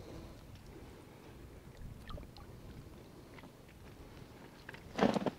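Faint handling noises of a fishing net being lifted over the bow of an inflatable PVC boat: scattered light ticks and rustles. About five seconds in there is one short, louder rush of noise.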